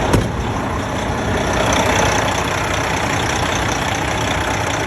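Detroit Diesel Series 60 engine in a Freightliner glider truck idling steadily, warming up after a temporary coolant-hose clamp repair. There is one sharp click just after the start.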